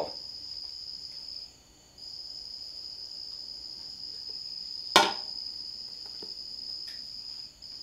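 A steady high-pitched cricket trill that pauses briefly twice. About five seconds in comes a single sharp knock as a removed transmission part is set down.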